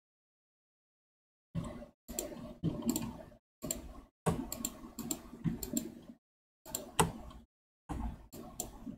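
Computer mouse and keyboard clicks picked up by a poor desk microphone. They come in short bursts of clicking with room noise, separated by dead silence.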